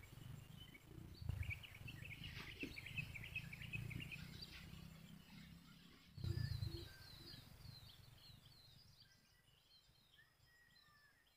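Small birds chirping in several quick runs of short notes, then a series of repeated down-slurred calls, with a thin steady trill near the end. Under them is a low rumbling noise that swells sharply about six seconds in and then fades.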